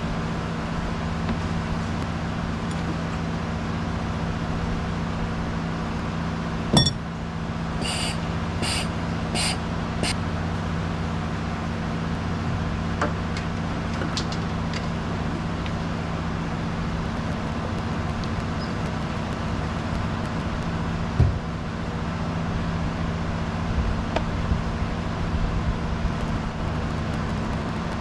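Steady low mechanical hum of a running engine. About seven seconds in there is a sharp knock, then a few short ringing metal clinks, and another knock about twenty-one seconds in, as parts of an outboard motor are handled.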